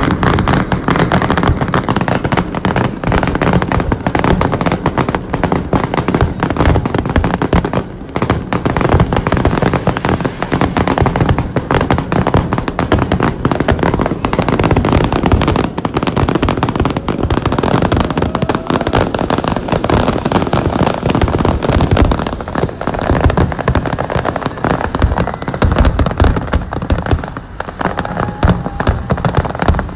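Aerial fireworks display: a loud, unbroken barrage of bangs and crackling shell bursts, many going off at once.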